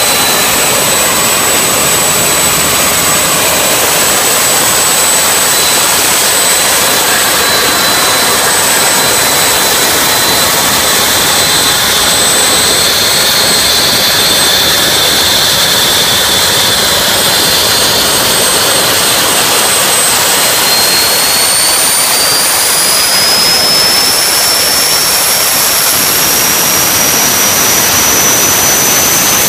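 Lockheed L-1011 TriStar APU, a twin-shaft ST6L-73 gas turbine derived from the Pratt & Whitney PT6, running loud with a steady high turbine whine over rushing noise. About two-thirds of the way through, the whine rises steadily in pitch as the turbine speeds up.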